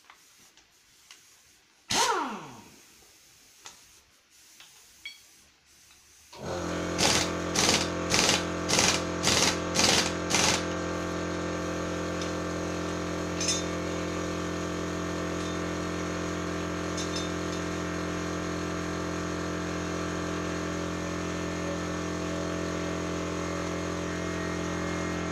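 Pneumatic impact wrench working the top nut of a front coilover absorber: one short burst about two seconds in that winds down, then about seven quick bursts a few seconds later. Under the later bursts a steady machine hum starts about six seconds in and runs on.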